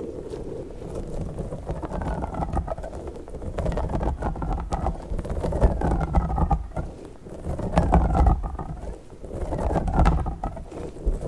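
Orange squishy slug toy being squeezed and kneaded close to the microphone. The wet squishing swells and fades about every two seconds, with faint squeaky glides on each squeeze.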